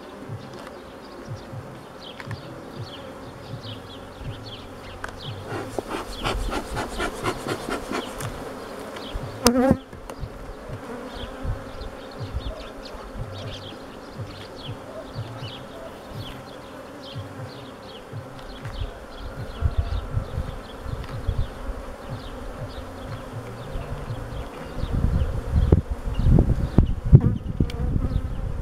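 Honeybees buzzing steadily over an open Langstroth-type hive while wooden frames are worked loose and lifted. A quick run of scraping strokes leads to a sharp knock about a third of the way in, and heavier low bumps come near the end as a frame is lifted out.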